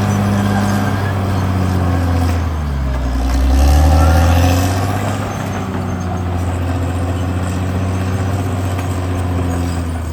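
CAT D6R XL bulldozer's diesel engine running steadily; about three seconds in its note drops lower and grows louder for a second or two, then settles back to an even pitch.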